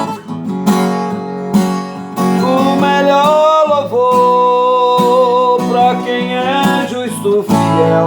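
Gospel praise song: acoustic guitar strumming steadily, with a voice singing a long, wavering held melody from about two and a half seconds in.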